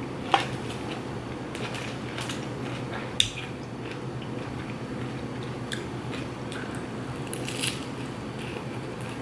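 Close-miked chewing and biting of food, with scattered crunches and sharp clicks, the loudest about a third of a second in and just after three seconds, over a faint steady low hum.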